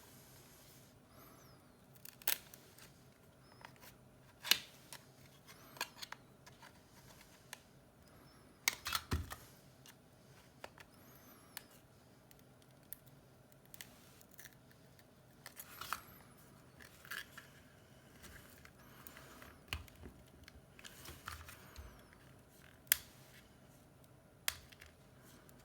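Small hand tools clicking and scraping against an iPhone 7 during screen repair work: irregular sharp clicks, with a short cluster of them about nine seconds in.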